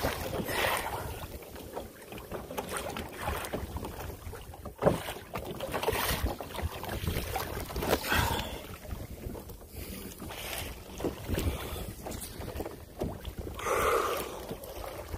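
Wind buffeting the microphone over water lapping and splashing against a kayak, in uneven gusts and slaps with a few louder splashes.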